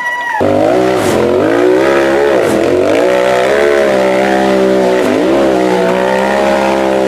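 Engine of a tube-frame off-road buggy revving hard as it claws up a steep dirt hill, wheels spinning and throwing dirt; the revs dip briefly twice, about two and a half and five seconds in.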